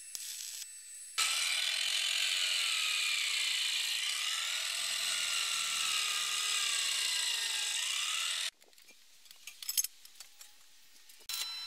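Angle grinder with a wire cup brush scrubbing a fresh weld on a steel tube: a loud, steady whine lasting about seven seconds, its pitch sagging as the brush is pressed into the work, then cutting off. Before it comes a brief crackle of stick welding, and after it a few light metal knocks.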